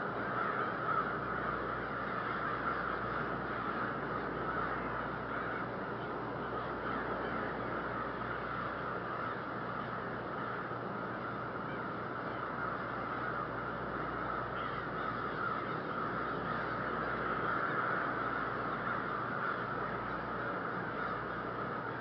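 A large gathering of crows calling before dawn, their caws overlapping into a steady, unbroken din, over a low rumble.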